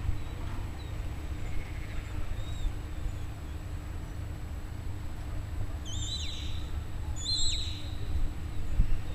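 Two shepherd's whistle commands from a sheepdog handler directing the dog, each a short high whistle with a quick warble and a falling tail, about a second and a half apart, over a low rumble.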